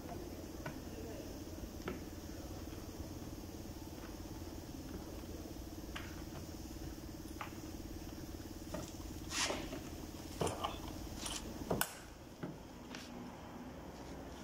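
Scattered clicks, taps and knocks of hand tools and parts being handled on a removed fuel tank's pump assembly, thickest between about nine and twelve seconds, over a steady hum that stops about twelve seconds in.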